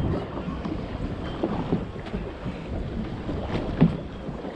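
Wind buffeting the microphone on a boat at sea, with a low rumble and a few short knocks, the loudest near the end.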